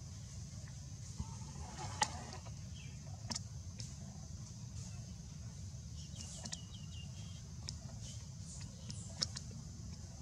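Outdoor ambience: a steady low rumble and a steady high hum, with a few sharp clicks (the loudest about two seconds in) and a short run of quick chirps about six seconds in.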